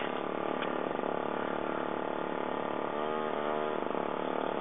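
A small engine running steadily at idle, with a brief wavering of its pitch about three seconds in.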